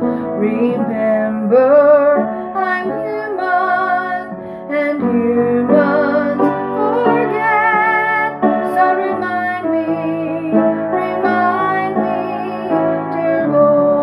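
A woman singing a gospel song with vibrato while accompanying herself on piano.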